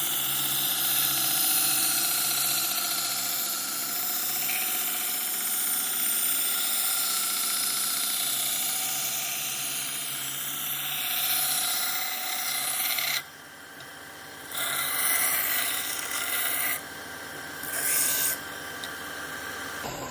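Bandsaw running and cutting through wood, a steady rasping noise over the motor's hum. The cutting noise drops away suddenly about two-thirds of the way through, returns, then cuts out again, with a short burst near the end.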